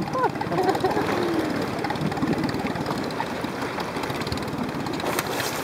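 A small boat's engine idling steadily.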